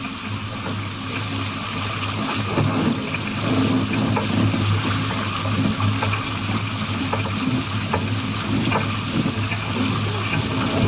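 Water rushing and splashing past the hull of a moving sailboat, a steady hiss with a low hum under it.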